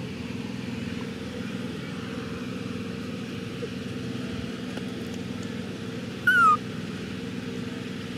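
A baby macaque gives one short, high call that falls in pitch, about six seconds in. A steady low drone runs underneath throughout.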